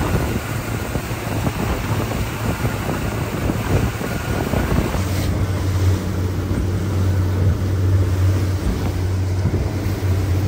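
Suzuki outboard motor running steadily with the boat underway, a low drone under the rush of the wake and wind buffeting the microphone. The engine drone grows stronger about five seconds in.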